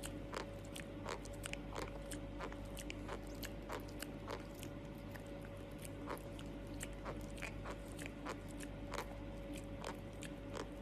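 An animal chewing crunchy food: irregular sharp crunches, about two or three a second, over a steady low hum.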